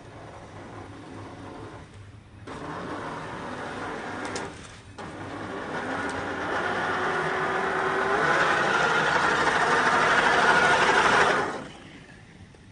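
Traxxas TRX-4 RC crawler's electric motor and gearbox whirring under throttle in three pushes: a short one, a stronger one about two and a half seconds in, and the longest and loudest from about five seconds in, which cuts off near the end.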